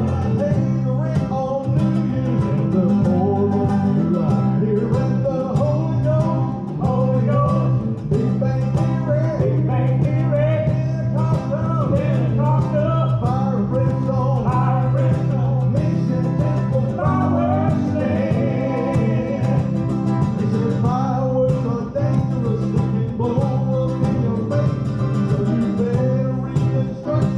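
Live bluegrass gospel music: a string band with mandolin plays a steady song without a break.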